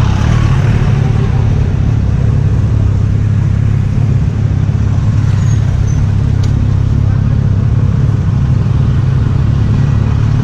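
Honda CB1000R's inline-four engine running at a steady pitch, as the motorcycle is ridden at an even speed.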